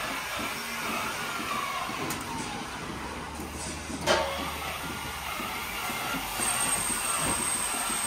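Milking parlour machinery running: steady mechanical noise with hissing air, and one sharp click about four seconds in.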